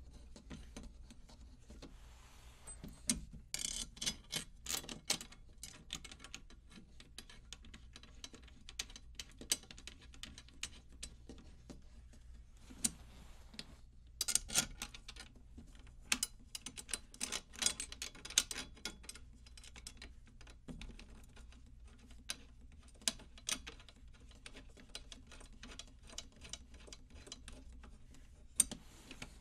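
Metal drum tension rods being threaded by hand into the lugs of a 10-inch tom: a run of small metallic clicks and ticks, with louder clusters of clinking every so often as rods and washers are handled against the hoop.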